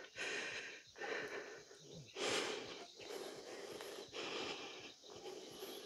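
A person breathing heavily close to the microphone, about one breath a second.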